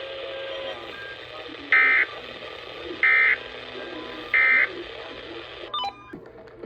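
Three short identical bursts of EAS/SAME digital data tones from NOAA Weather Radio, a little over a second apart: the end-of-message (NNNN) signal closing the severe thunderstorm warning. Faint radio hiss runs underneath, with a few clicks near the end.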